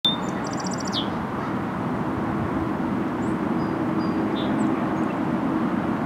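Song sparrow singing a short phrase in the first second: a high note, a fast trill and a falling slur, followed by a few faint high chirps. Under it runs the steady rush of a mountain creek.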